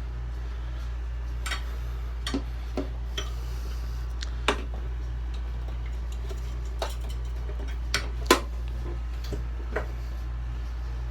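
Scattered light clicks and taps at irregular intervals over a steady low hum; the sharpest click comes about eight seconds in.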